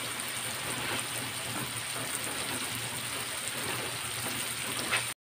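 Pork pieces frying in oil in a wok: a steady sizzling hiss that cuts off suddenly near the end.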